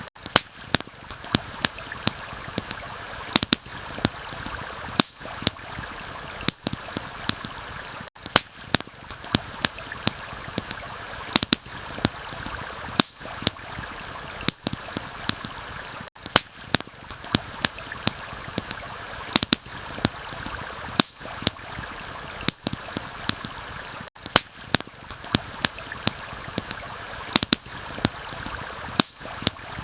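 Steady rush of a flowing stream, overlaid throughout by irregular sharp pops and crackles of a wood campfire, several a second.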